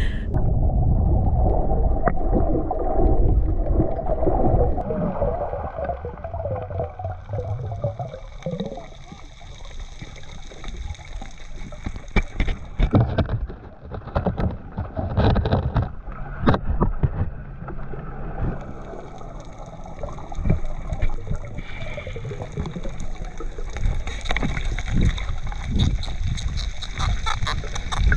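Underwater sound through an action camera: a rush of water that is louder for the first few seconds, then gurgling with scattered clicks and knocks.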